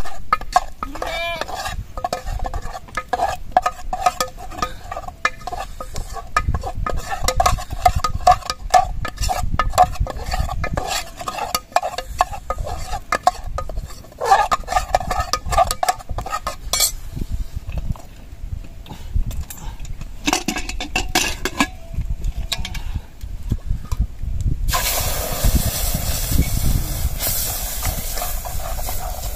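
Metal spoon stirring and scraping in a metal cooking pot: rapid, uneven ringing clinks, with short pauses. Near the end a loud, steady hiss of cooking begins.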